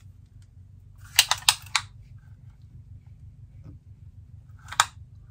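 Handling of a diamond painting canvas and a tape measure: a quick cluster of three or four sharp crackles and taps about a second in, and one more near the end, over a faint steady low hum.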